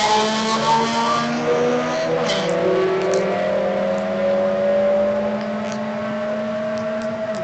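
Two drag-racing hatchbacks, one a Honda Civic, accelerating hard down the strip: their engines rev up in pitch, drop back at each gear change and climb again, slowly fading as the cars pull away.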